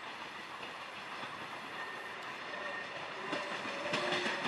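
Ol49 steam locomotive and its passenger carriages rolling slowly over station tracks, with a steady rumble and clatter; from about three seconds in, thin high metallic squealing from the wheels joins in and grows louder.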